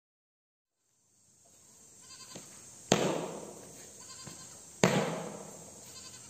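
Two sharp stamps of a drill boot on a concrete floor, about two seconds apart, each with a short echoing tail. The second is the left foot stamping out from attention into stand at ease.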